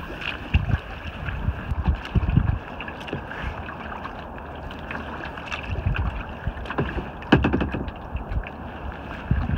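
Kayak paddle strokes splashing in the water at irregular intervals, with water lapping around the hull and wind gusting on the microphone.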